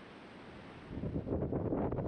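Wind buffeting the microphone, a low rumbling gust that grows stronger about a second in.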